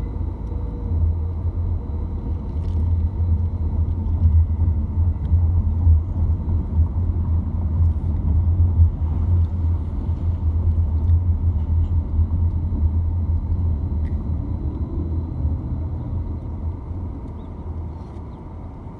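Car cabin noise while driving: a steady low rumble of engine and tyres on the road, building over the first few seconds and easing off near the end as the car slows.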